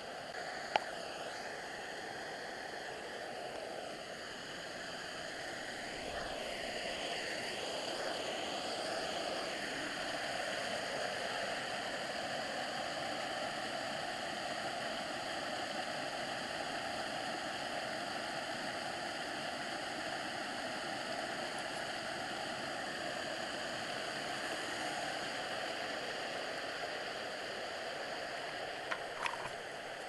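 Steady rush of a creek spilling over a low waterfall, under a camera's hiss. A sharp click about a second in and a couple of clicks near the end.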